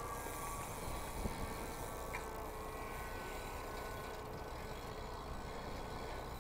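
Steady rush of wind on the microphone with BMX tyres rolling over packed dirt, and a light knock about a second in.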